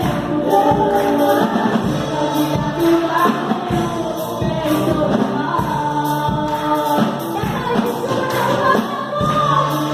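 Gospel song playing: sung vocals with a choir over a band with a steady beat.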